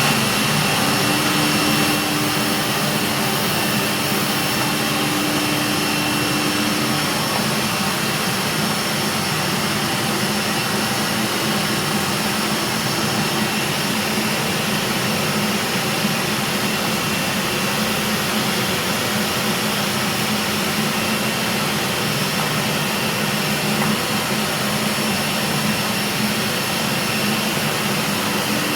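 Disc automatic-tool-change CNC router engraving a wooden door: the spindle runs steadily under load with a constant high whine over cutting noise.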